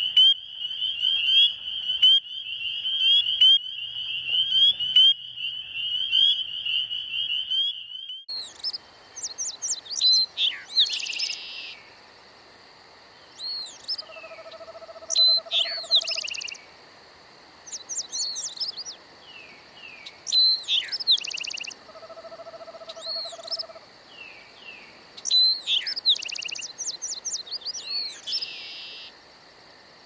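Spring peepers calling in a dense chorus of high, rapid peeps, which cuts off about eight seconds in. Then a bird sings repeated phrases of sweeping whistles and buzzy trills, with a lower steady hooting note heard twice.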